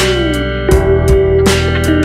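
Background music: guitar over a steady beat, with one note sliding down in the first half second.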